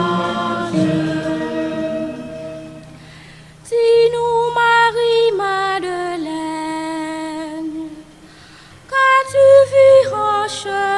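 Choir holding the last chord of the refrain, fading out about three seconds in. Then a woman sings a solo line into a microphone over a low held accompaniment note, stops briefly near eight seconds, and sings on.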